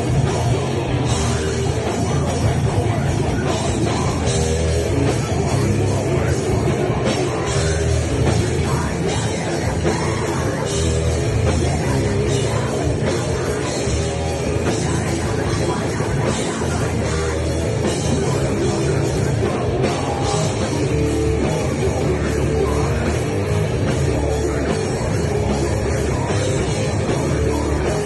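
Heavy metal band playing live, loud and dense, with a drum kit driving it.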